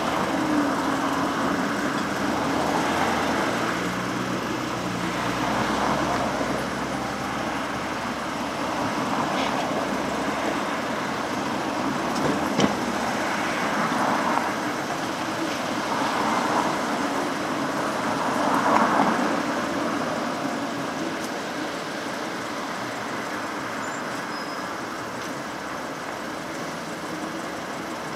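Road traffic passing through an intersection: cars and a city transit bus drive by one after another, each swelling and fading, over a steady low hum. There is one short sharp knock about halfway through.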